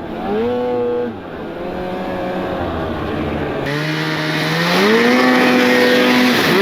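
Snowmobile engine revving: it rises in pitch briefly near the start and drops back, then climbs again about five seconds in and holds high. A loud rushing hiss joins about four seconds in.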